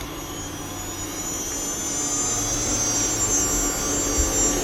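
Water-cooled CNC router spindle spinning up toward 15,000 RPM: a high whine that rises and grows louder over the first couple of seconds, then runs steady. It runs smooth and quiet, with no sign of trouble.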